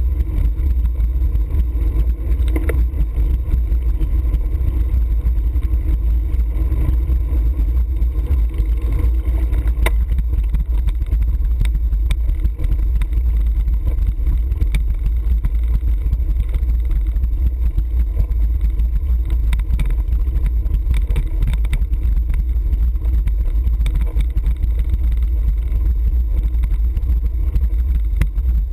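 Wind rumble and road vibration on a bicycle-mounted action camera's microphone as the bike rolls along, with scattered knocks and rattles from the road and cobblestones.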